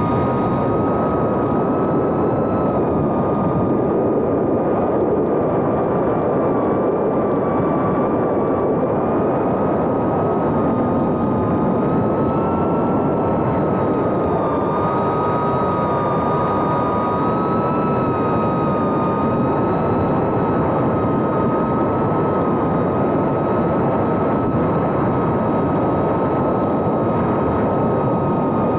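The brushless motors of a 2.5-inch FPV whoop drone, Happymodel 1404 3500 kV, whining steadily in flight. The pitch wavers slightly with throttle over a continuous rushing noise.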